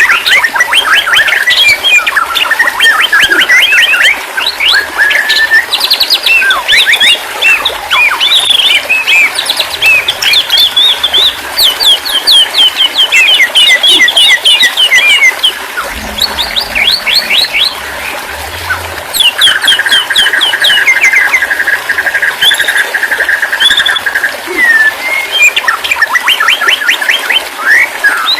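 Songbirds singing a dense, loud run of fast chirps, sweeping notes and rapid trills, with a long buzzy trill held at one pitch for several seconds past the middle.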